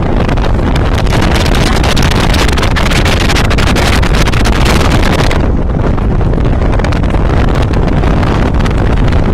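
Heavy wind buffeting the microphone of a moving Jeep, over the vehicle's running and road noise. The hiss eases somewhat about five seconds in.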